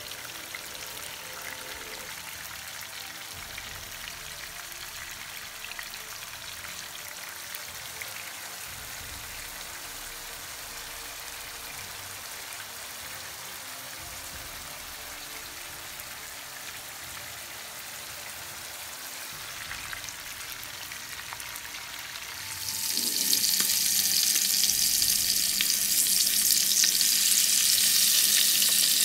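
Koi fish (climbing perch) and an onion-tomato gravy sizzling in oil in non-stick pans: a steady low sizzle, which late on turns into a much louder, sharper hiss of fish frying in hot oil.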